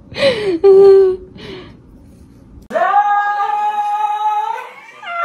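A voice: a short falling cry and a brief held note, then, after a cut, one long steady held note of about two seconds.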